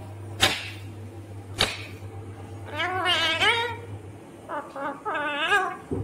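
Indian ringneck parakeet calling: two sharp clicks, then two wavering, whine-like calls about three and five seconds in.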